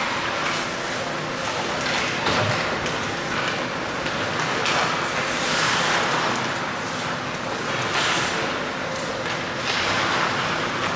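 Ice hockey skates carving and scraping on the ice: a steady rushing hiss that swells and fades every couple of seconds, over faint rink hum.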